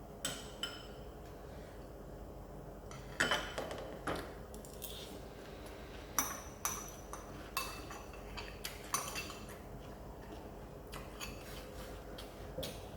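Cutlery clinking and scraping against dishes: scattered sharp clicks, some with a short ring, heaviest about three seconds in and again around six to nine seconds.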